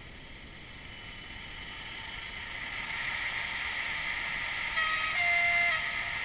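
Model TGV POS's LokSound sound decoder playing its running sound through a small speaker, swelling over the first few seconds, then sounding a two-note train horn, a lower note stepping to a slightly higher one, for about a second near the end.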